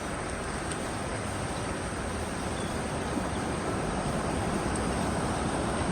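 Steady rushing beach ambience of wind and ocean surf, without distinct events, growing slightly louder toward the end.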